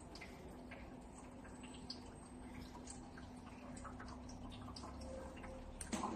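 Faint water dripping and trickling in the clear filling bottle of a fat-freezing machine's cooling tank while it is being filled. A single louder knock near the end.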